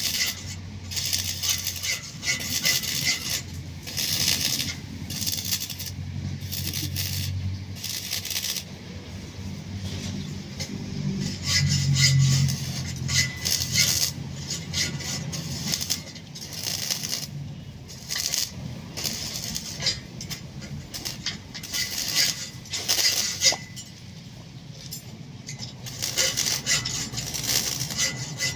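Irregular scraping and clinking of hard materials in short strokes with brief pauses, like hand work with metal tools.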